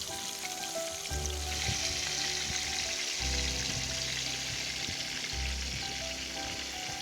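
Fish frying with a steady sizzle that gets louder about a second and a half in, under background music.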